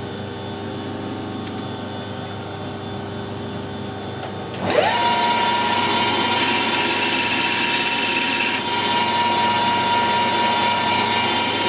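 Metal lathe starting up a little before halfway, its motor whine rising quickly in pitch and then holding steady as the chuck spins. A harsher hiss joins the whine for about two seconds soon after. Before the start there is only a steady low hum.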